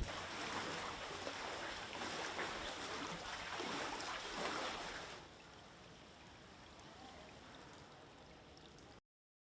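Floodwater sloshing and splashing for about five seconds, then a quieter, fainter wash of water until the sound cuts off abruptly near the end.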